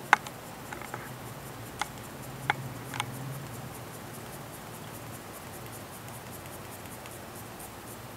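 Paper strip being wound into a tight coil on a wooden slotted quilling pen, with a few sharp light clicks of paper and tool handling over the first three seconds.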